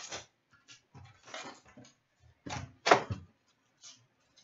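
Cardboard trading-card box and foil card packs being handled: several short scrapes and rustles as packs are pulled out and stacked, with a louder knock about three seconds in.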